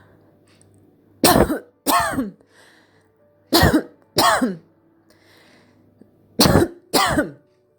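A person's dry, short coughing: three pairs of coughs a couple of seconds apart. This is the periodic dry cough with no sputum brought up, described as typical of tuberculous lung infiltrates before any breakdown of lung tissue.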